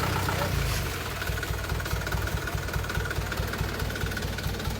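Off-road 4x4's engine running at a steady idle, with an even low throb.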